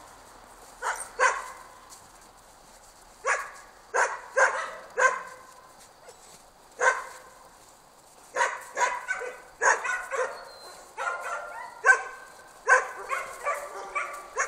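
Jämthunds (Swedish elkhounds) barking in short, sharp barks: a few spaced barks at first, then a quicker run of barks through the second half.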